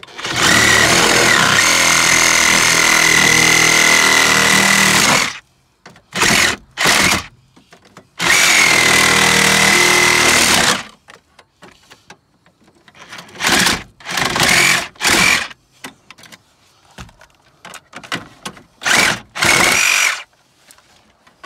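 DeWalt brushless cordless reciprocating saw cutting into a car dashboard, its motor whining under load. It runs in bursts: one long run of about five seconds, a short burst, a second long run of about two and a half seconds, then several brief bursts with pauses between.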